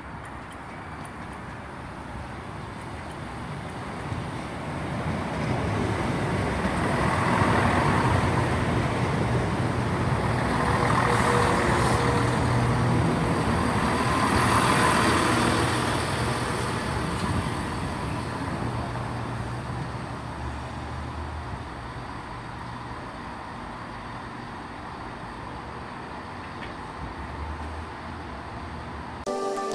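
Diesel multiple unit's underfloor engines running as the train moves through the station, growing louder to a peak partway through, then fading.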